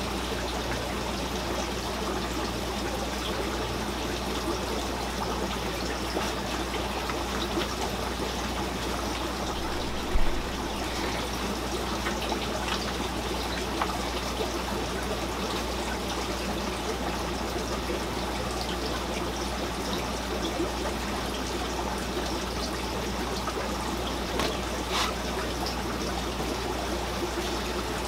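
Steady trickle of running water from the fish room's aquarium filters, over a low steady hum. A single knock about ten seconds in.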